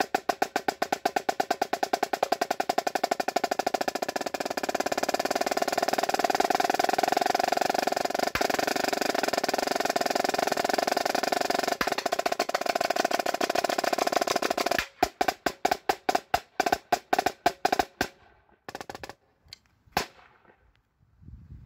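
Yamaha marching snare drum played with sticks: rapid strokes build into a long, dense roll that cuts off suddenly about fifteen seconds in. A run of separate strokes follows, thinning out to a single last hit near the end.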